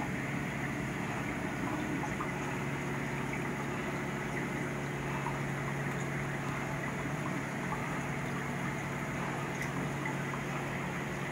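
Reef aquarium's pumps and circulating water running: a steady low hum over a constant wash of moving water.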